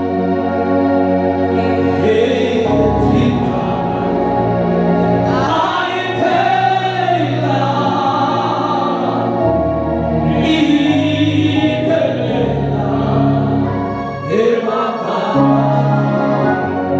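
A church congregation singing a gospel song together over held keyboard chords, with a bass line that changes note every second or two.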